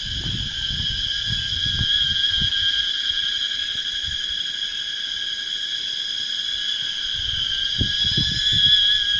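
Loud, steady, high-pitched buzzing drone from an unseen forest creature, holding one pitch without a break. It sounds like an engine, with low thumps of microphone handling near the start and again near the end.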